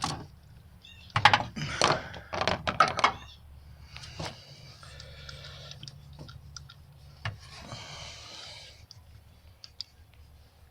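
Hand tools working on the engine while a spark plug is removed: a run of sharp metal clicks and clanks, about a second in and lasting about two seconds, then fainter rustling and scattered ticks.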